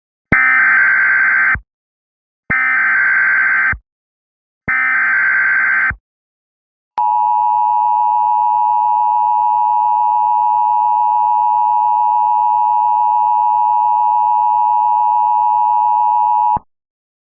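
Emergency Alert System SAME header: three short bursts of warbling digital data tones, about a second apart. Then the steady two-tone EAS attention signal sounds for about nine and a half seconds and cuts off sharply.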